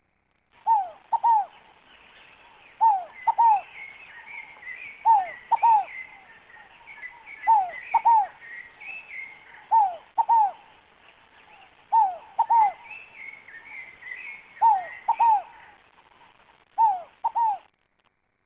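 Rolinha fogo-apagou, a small Columbina ground dove, cooing: eight two-note coos, each note sliding down, repeated about every two seconds and stopping shortly before the end. Small birds twitter faintly and higher-pitched in the background.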